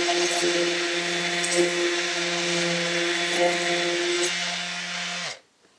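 DeWalt random orbital sander running with a steady hum and grind as its disc sands the square corner of a luxury vinyl floor plank round. It stops shortly before the end.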